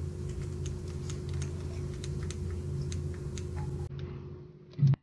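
Steady low electrical hum with scattered faint clicks, like keys being tapped. A little before the end the hum drops away and one short, loud, low thump sounds, followed by silence.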